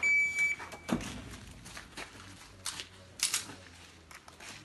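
Electronic shot-timer start beep: one steady high tone about half a second long. Several softer knocks and clicks follow over the next few seconds.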